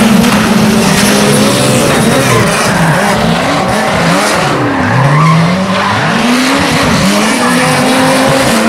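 Rally car engines revving hard, the pitch climbing and falling back several times as the cars accelerate and lift off, over a steady rushing noise.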